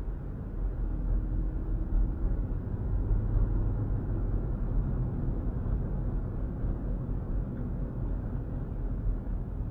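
Car driving on a city street, heard from inside the cabin: a steady low rumble of tyre and engine noise, a little louder in the middle.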